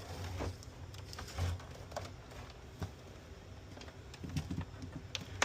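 Scattered light clicks and soft knocks of hands handling cables and plugs at an open PlayStation 5 console, a few sharp clicks among them.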